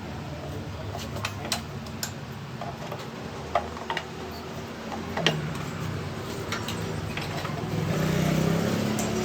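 Hero Splendor motorcycle's single-cylinder four-stroke engine running at idle, with a few sharp clicks over it. Near the end the engine picks up speed and its pitch rises.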